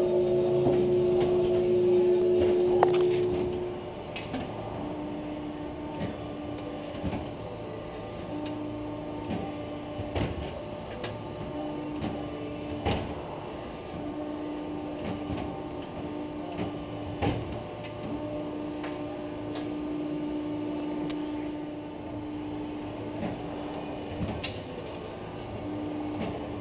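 Metal-shop machinery cutting aluminum diamond plate. A louder steady machine hum stops about four seconds in. A quieter hum then comes and goes, with scattered sharp clicks and clanks as the sheet is handled at an ironworker shear.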